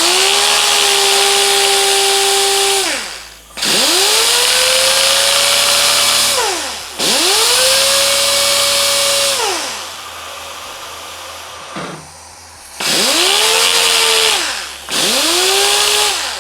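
Pneumatic orbital sander run in five short bursts. Each time it spins up to a steady whine over a loud hiss of exhaust air, then winds down with falling pitch when the trigger is let go. The sander has just been flushed of dust with carburettor cleaner and is running on full compressor pressure.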